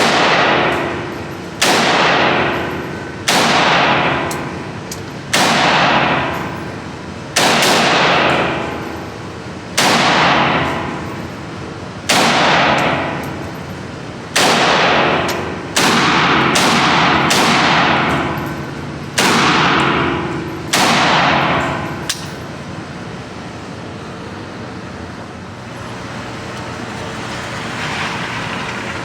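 About a dozen single gunshots fired one at a time, roughly one every two seconds, each followed by a long ringing tail. The firing stops about two-thirds of the way through.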